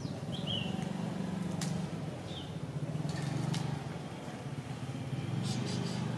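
A motor engine running low and steady, its pitch shifting slightly, with two short high chirps over it.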